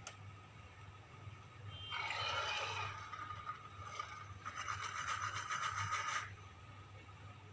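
SpaceGodzilla monster sound effects from the 1994 film: a short rasping screech, then a longer, louder rasping roar that pulses rapidly, preceded by a sharp click at the start.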